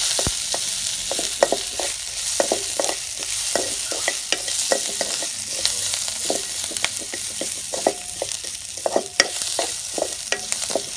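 Sliced onion and green chilli sizzling in hot oil in a metal wok, with a steady hiss, while a wooden spoon stirs them, scraping and knocking against the pan many times.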